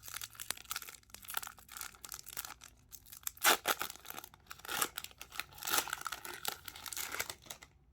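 Wrapper of a baseball card pack being torn open and crinkled by hand: a run of uneven rustling tears, the loudest about three and a half seconds in, stopping just before the end.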